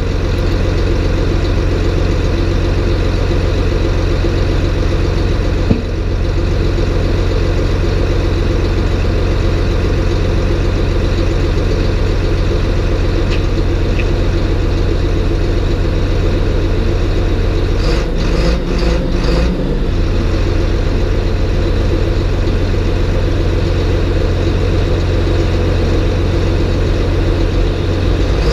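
John Deere 850J crawler dozer's diesel engine running steadily. There is a single short knock about six seconds in and a brief change in the sound with some rattling around two-thirds of the way through.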